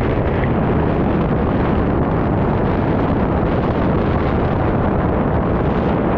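Wind rushing over a GoPro microphone in flight under a paraglider: a loud, steady rumble of airflow noise.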